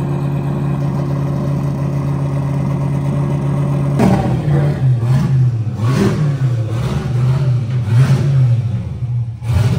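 Turbocharged F-body Camaro's engine running at a steady idle, then, about four seconds in, rising and falling in a series of short revs as the car is driven slowly onto the dyno.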